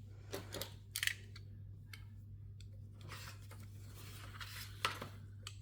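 Faint rustling with a few short scrapes and taps: packaging and the keyboard being handled while it is unboxed.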